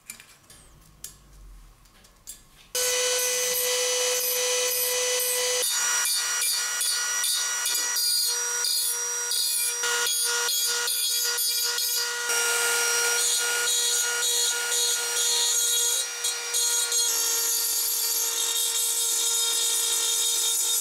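Small handheld rotary tool with a grinding bit, running with a steady high whine as it grinds the painted metal top of an oil lantern around the handle joints. It starts about three seconds in; before that there are a few light clinks of small metal parts being handled.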